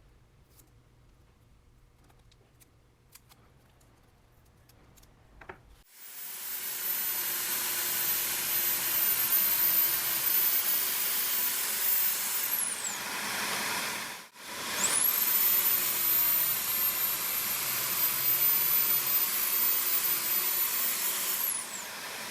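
Electric drill-powered disc sander running twice, each run lasting about seven seconds: a steady grinding hiss under a high motor whine. The whine falls away as it spins down at the end of each run and rises as it spins up for the second. A few faint clicks come before it.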